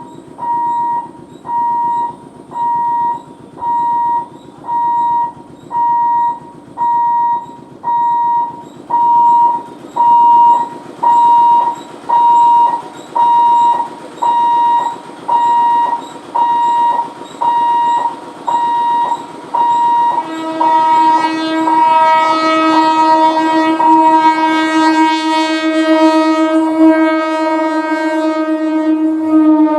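Level-crossing warning alarm beeping a steady high tone about once a second, then a Medha EMU train's horn sounding one long, loud blast from about twenty seconds in, overlapping the last beeps and dropping slightly in pitch at the end as the train passes.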